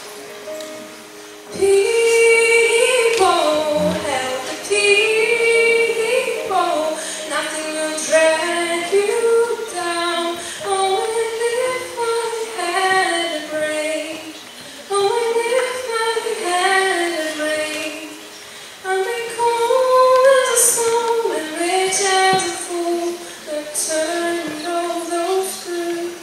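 A woman singing a slow song into a microphone, in sung phrases of a few seconds each with short pauses for breath between them.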